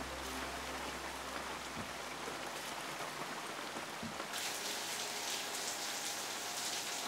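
Rain falling onto puddle water, a steady patter of drops. About four seconds in the sound changes to a brighter, hissier downpour.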